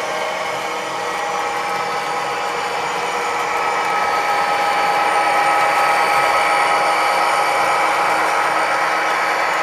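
HO scale model diesel locomotive running past at close range: a steady whir of its small electric motor and wheels on the track, with a constant high whine, growing a little louder about halfway through as it comes close.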